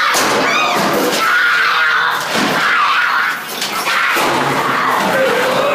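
Haunted-house attraction noise: loud, high shrieks with repeated bangs and slams.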